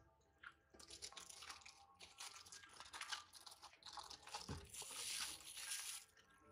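Crinkling of a plastic bag and crisp crunches of a small green vegetable being cut by hand, in a string of short bursts that get busier in the second half and stop near the end.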